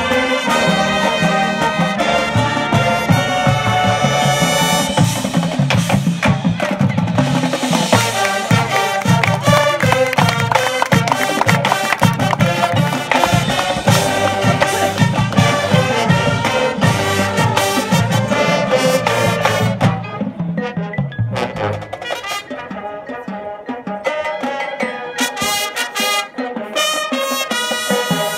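High school marching band playing its field show: brass with drums and front-ensemble percussion. About 20 seconds in the low drums drop out and the music gets quieter.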